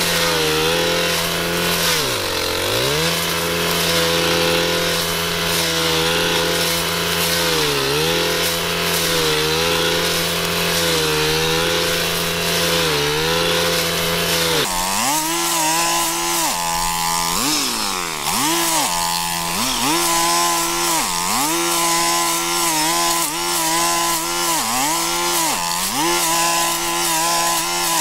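Echo SRM-3610 brushcutter's two-stroke engine running at high revs while its three-tooth blade cuts thick grass and weeds. The engine speed dips again and again and recovers, dropping sharply a few times as the blade bogs down in the dense growth.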